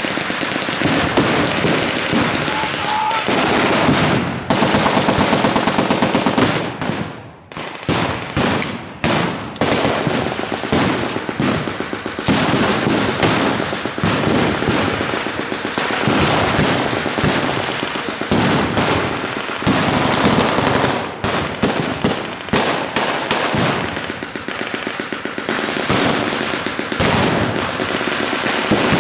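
Sustained blank gunfire from WWII-style machine guns and rifles: long rapid machine-gun bursts mixed with single shots, with a brief lull about seven seconds in.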